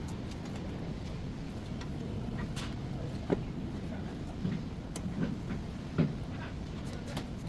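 Steady low rumble with a few short knocks and clicks scattered through it, the sharpest about three and six seconds in.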